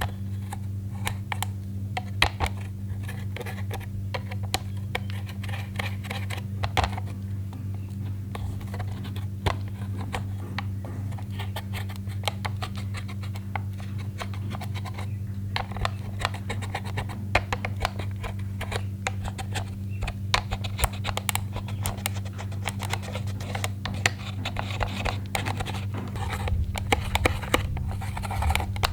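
Slime being kneaded and stretched by hand, making many small sticky clicks and crackling pops that come thicker in the second half, over a steady low hum.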